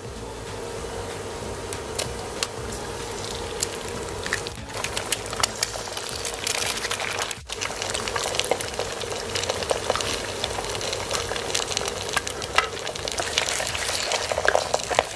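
Eggs frying in hot oil in a wok: a steady sizzle with constant crackling spatter, which grows louder about halfway through. Near the end a wooden spatula stirs and breaks up the eggs.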